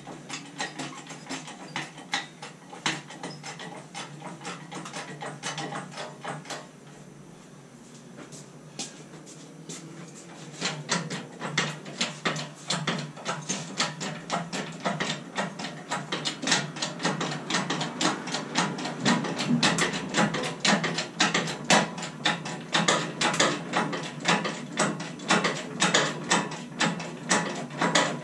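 Rapid metallic clicking of a hand-worked ratchet, the pawl snapping over the teeth many times a second, as the lathe is rigged and lifted. It goes lighter and pauses briefly a third of the way in, then runs louder and steadier from about eleven seconds in.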